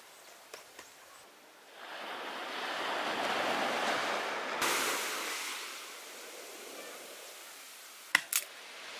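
Surf washing onto a beach: a wave swells in about two seconds in, hisses brighter around the halfway mark, then slowly dies away. Two sharp clicks near the end.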